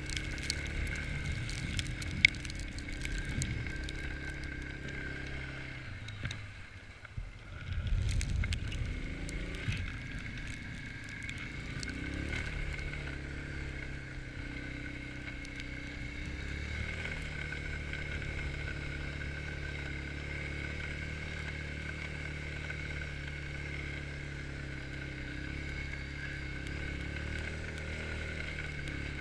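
Quad bike (ATV) engine running under load as it climbs a snowy hillside, with a steady high whine above the engine note. The engine eases off about six seconds in and picks up again sharply about two seconds later, then runs steadily with small changes in pitch.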